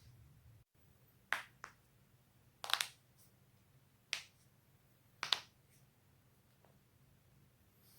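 Spinal joints cracking: a series of sharp pops spaced roughly a second apart, one of them a quick cluster of several cracks.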